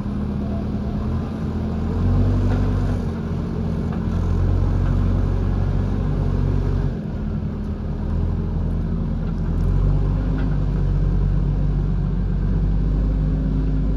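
JCB backhoe loader's diesel engine running under load, its revs rising and falling as the machine works.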